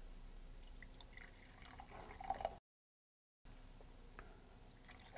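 Faint liquid pouring from a plastic bottle into a glass graduated cylinder, with a few light clicks. The sound drops out completely for under a second midway.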